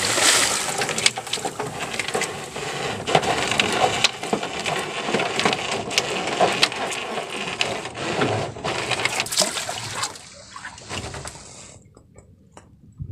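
Water splashing and rushing against the hull and bamboo outrigger of a moving outrigger boat, a dense irregular wash that fades away over the last few seconds as the boat slows.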